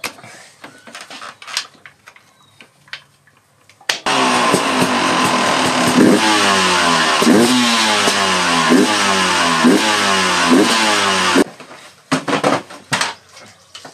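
Two-stroke dirt bike engine running loud and being revved in repeated blips, starting abruptly about four seconds in and cutting off suddenly some seven seconds later. A few light clicks and knocks come before it.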